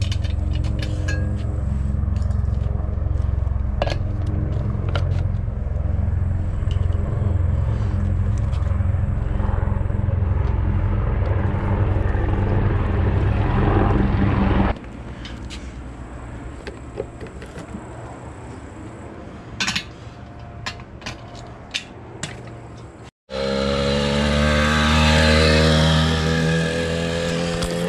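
Small two-stroke 80cc bicycle engine kit running at a steady idle, stopping abruptly about halfway through. After a quieter stretch with scattered clicks and knocks, the engine runs again with its pitch rising and falling as the bike is ridden.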